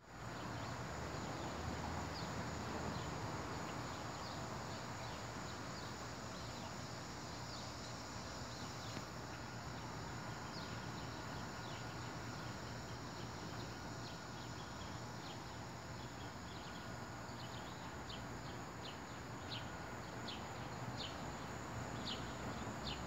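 Birds chirping in short, high calls that come more often near the end, over a steady low background hum.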